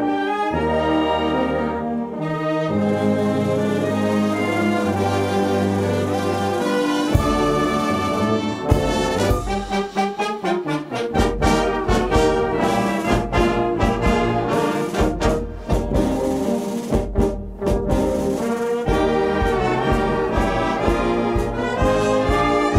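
A wind band of trumpets, tubas, saxophones and clarinets playing. Long held chords over a sustained bass come first; about nine seconds in it moves into a quicker passage with a steady beat of percussion hits.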